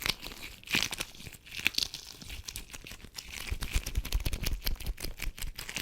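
Latex gloves rubbing and crinkling, a dense run of small crackles and snaps.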